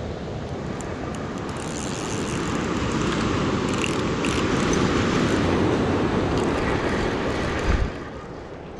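Surf washing on the beach, a rushing noise that swells over several seconds. It drops away abruptly near the end with a low thump.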